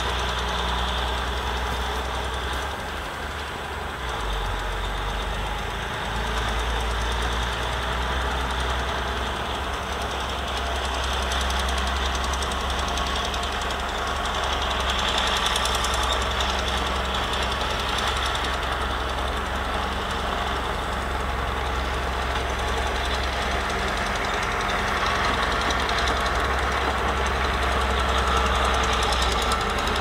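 Small crawler bulldozer's diesel engine running steadily under load as it pushes wet soil.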